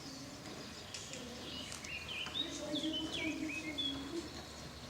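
Swallows twittering from a nest in the roof: a run of short high chirps and quick falling notes, busiest in the middle.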